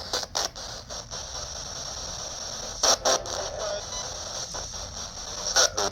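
Ghost-hunting spirit box scanning through radio frequencies: steady radio static broken by short bursts of sound as it sweeps, the loudest two bursts about three seconds in and near the end.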